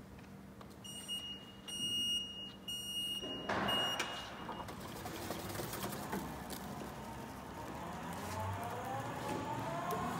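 Robopac Robot S7 self-propelled stretch wrapper starting a wrap cycle: a series of high electronic warning beeps, then the robot's drive motor running as it sets off around the pallet, with a rising whine near the end.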